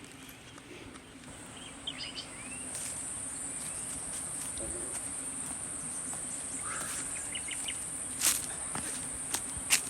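Insects shrilling in a steady high drone that swells about two and a half seconds in, with a few short bird chirps early on. Two sharp clicks near the end.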